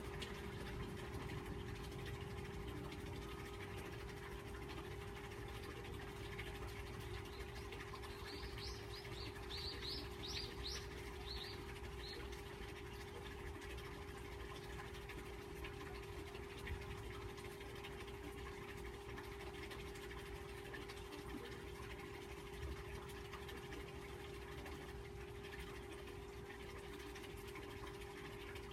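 Faint outdoor ambience: a steady hum over low rumbling noise, with a small bird giving a quick run of about a dozen short, high chirps about eight seconds in.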